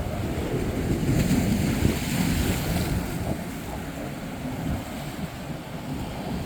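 Sea surf breaking on a beach, with a strong wind buffeting the microphone in uneven gusts.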